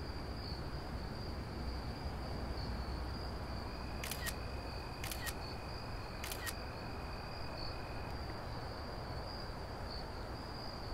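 Smartphone camera shutter sound, three clicks about a second apart as photos are taken. A steady high-pitched insect trill runs behind.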